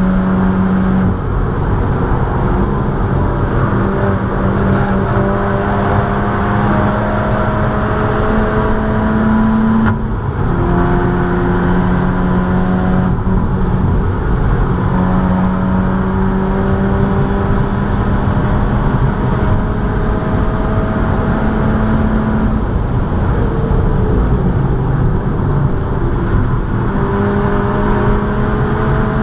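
In-cabin sound of a Seat Leon Cupra 280's turbocharged 2.0-litre four-cylinder engine pulling hard at high speed. The engine note climbs slowly over several seconds, then breaks off and drops back a few times, over heavy tyre and wind roar.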